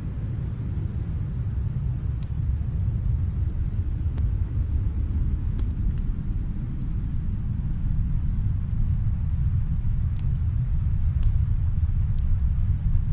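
Steady low roar of storm wind, with sparse sharp crackles and pops from a wood fire in a fireplace, about one every second or two.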